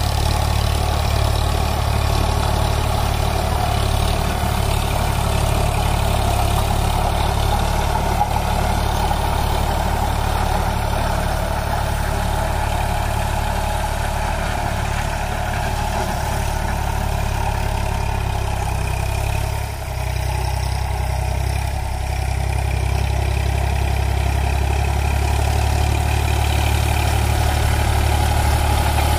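Eicher 548 tractor's three-cylinder diesel engine running steadily under load while driving a rotavator through the soil, with a brief dip in level about twenty seconds in.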